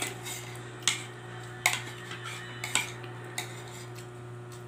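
Metal fork and spoon clinking and scraping against a plate while eating, with about five sharp clinks spaced roughly a second apart.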